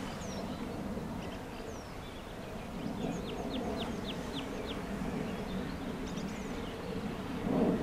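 Bulleid Battle of Britain Pacific 34053's three-cylinder steam locomotive working in the distance, a low steady rumble that swells near the end. Small birds sing over it: a couple of down-slurred whistles, then a quick run of about seven high notes in the middle.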